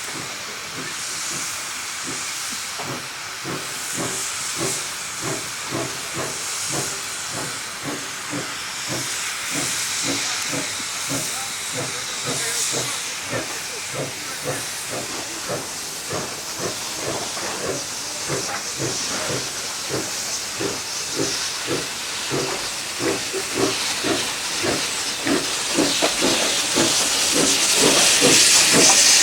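A 760 mm narrow-gauge forest railway steam locomotive working, its exhaust beating in regular chuffs a few times a second over a constant hiss of steam. It grows louder toward the end.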